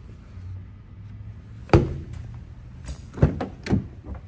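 A 2016 Ram 3500 crew cab pickup's door being opened by its handle: one sharp latch clunk a little under halfway in, then a few lighter knocks as the door swings open.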